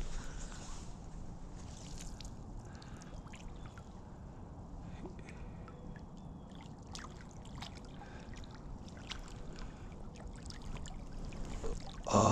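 Low steady rumble and trickle of a small stream, with scattered faint clicks and taps throughout. A man's voice comes in at the very end.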